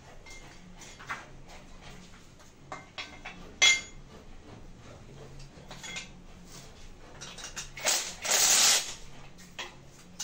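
Light clicks and clinks of metal parts being handled on a bare motorcycle engine, with one sharp click about a third of the way in. About eight seconds in a cordless drill-driver runs briefly, a short blip and then about a second of running.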